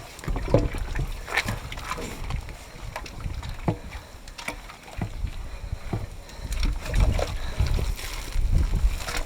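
Stirring stick sloshing and churning through fresh cow dung and water in a biogas mixing pit, with irregular knocks and splashes, mixing the digester's feed into a smooth slurry.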